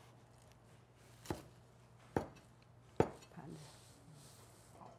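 Chinese cleaver chopping cilantro on a wooden cutting board: three separate sharp chops, about a second apart.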